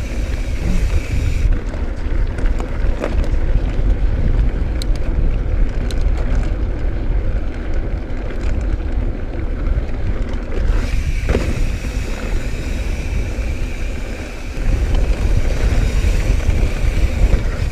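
Mountain bike rolling along dirt singletrack: steady tyre and trail rumble with light clicks and rattles from the bike, under heavy wind buffeting on the microphone.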